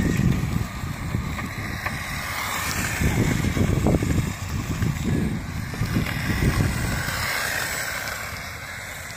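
Wind buffeting the microphone, over the faint rising and falling whine of a 1/10-scale HPI RS4 Sport 3 Flux RC car's brushless motor as the car drives.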